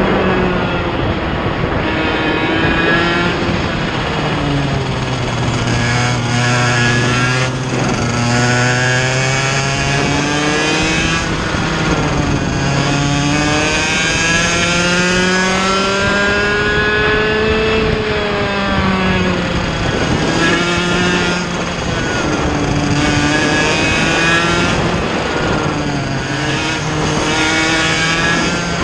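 Onboard sound of a Mini ROK kart's 60cc two-stroke engine at racing speed, its pitch climbing and falling over and over as it accelerates and slows through the corners.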